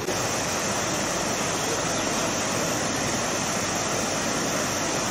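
Rushing water of a flooded stream, a steady even noise with no let-up.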